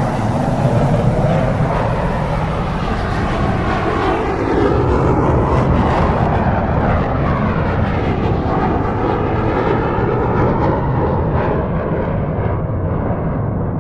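Jet airplane engines with a steady rushing roar, its high end fading away over the second half as the aircraft moves off.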